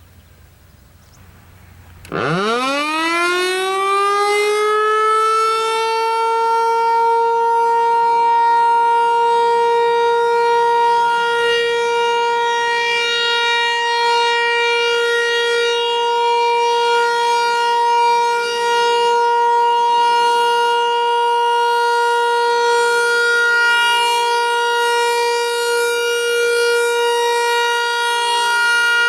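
Federal Signal 508-128 electromechanical outdoor warning siren sounding a test: it starts about two seconds in, winds up quickly in a rising glide, then holds a steady, loud wail.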